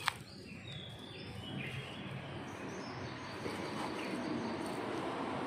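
Birds chirping outdoors, with a sharp click just after the start and a rushing background noise that grows slowly louder.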